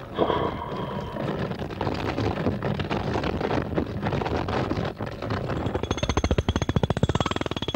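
A loud, continuous rattling clatter. About six seconds in it becomes a fast, even run of clicks, then cuts off suddenly at the end.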